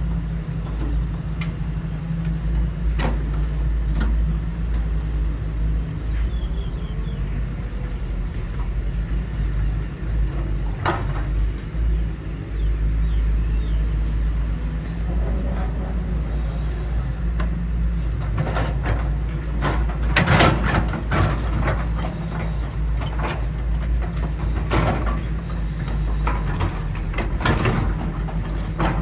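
Homemade radio-controlled hydraulic construction models at work: a steady low machine drone, with scattered clicks and clattering knocks that grow busier about two-thirds of the way through.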